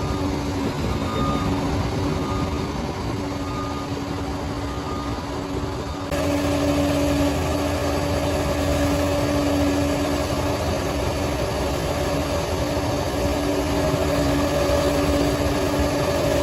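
Diesel engine of heavy earthmoving equipment running steadily, with faint short beeps in the first few seconds; the sound jumps suddenly louder about six seconds in.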